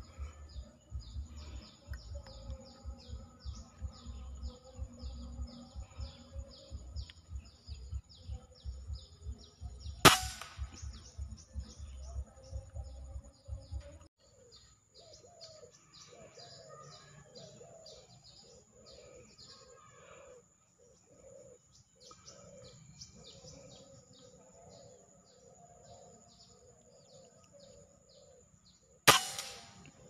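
Two sharp shots from a Bocab 500cc FX air rifle, the first about ten seconds in and the second just before the end. Behind them runs a steady high insect-like drone with rapid repeated chirping and bird calls.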